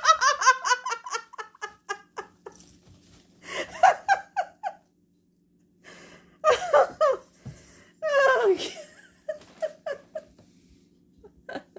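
A person laughing in several bursts of quick, repeated ha-ha sounds, with pauses in between.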